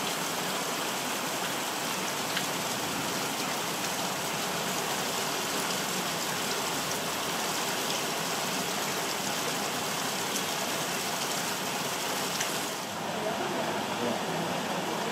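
Heavy rain falling in a steady, even hiss. About two-thirds of the way through, the highest part of the hiss drops a little.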